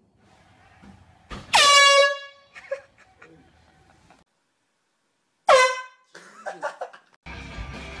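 Handheld canned air horn blasting twice: a loud blast of under a second about one and a half seconds in, then a shorter one about five and a half seconds in. Each blast swoops sharply down in pitch as it starts, then holds a steady blare.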